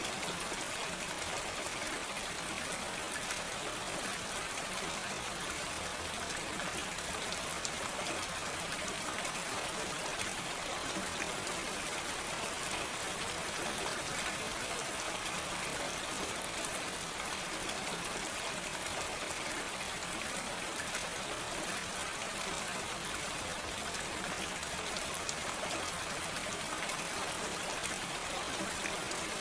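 Steady, gentle rain with no thunder, an even hiss of drops that stays constant throughout.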